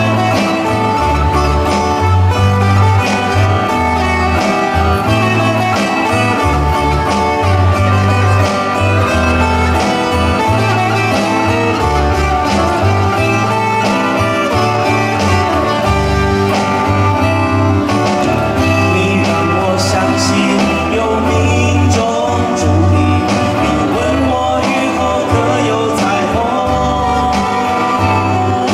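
Live band playing an instrumental passage of a pop song on guitars, acoustic and a red electric guitar, over a steady bass line.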